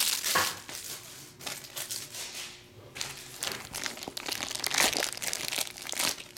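Crinkly black plastic wrapper of a trading-card pack being handled and pulled open by hand, rustling in irregular bursts.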